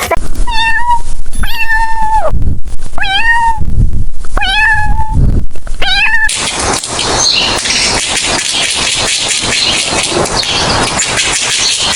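Domestic cat meowing five times, each meow a short call with a bending pitch. About six seconds in, the meows stop and a steady rough hiss takes over.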